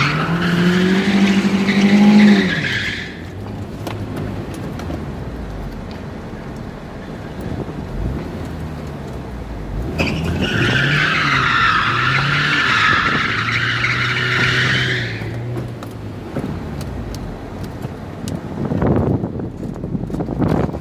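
Car tires squealing on asphalt as the car turns a tight donut, over the engine's running note. The squeal comes twice: from the start until about 3 seconds in, then again from about 10 to 15 seconds.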